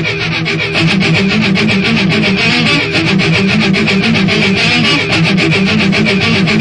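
Rock music with electric guitar over a fast, steady beat, growing louder about a second in.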